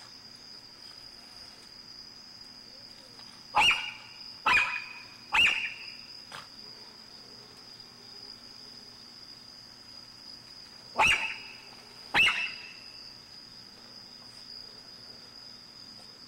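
Miniature pinscher barking: three sharp, high-pitched barks in quick succession, then two more about six seconds later.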